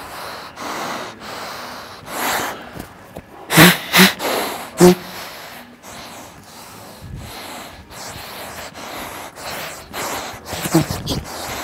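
A man breathing hard through a breathing-restriction training mask, with repeated forceful breaths in and out and three loud huffs about three and a half to five seconds in. The mask's valves restrict the airflow, so each breath comes out as a strained huff.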